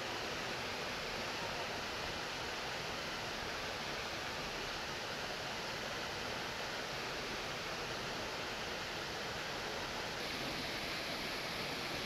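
Water of a jungle waterfall rushing and splashing over rocks, a steady even rush with no break.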